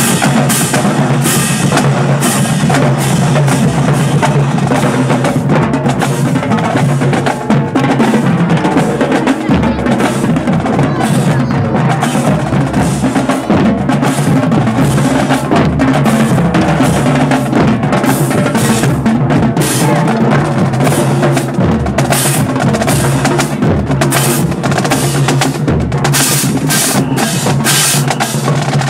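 Marching drums playing a steady, fast cadence, with snare drum rolls over bass drum beats.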